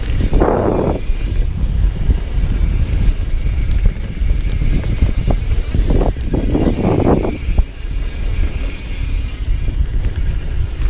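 Downhill mountain bike running down a dirt trail: steady wind buffeting on the rider-worn camera's microphone over tyre noise and small rattles from the bike, with two louder rasping scuffs, about half a second in and again from about six to seven and a half seconds.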